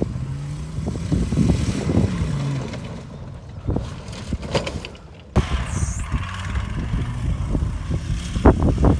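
Ford F250 Super Duty's V10 gasoline engine running as the truck drives over rough dirt and grass, its pitch rising and falling. The sound cuts off abruptly about five seconds in and picks up again, with a few sharp knocks near the end.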